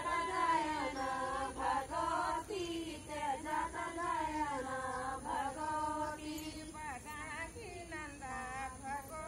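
A group of women singing a folk song together in unison, voices only, to accompany a circle dance.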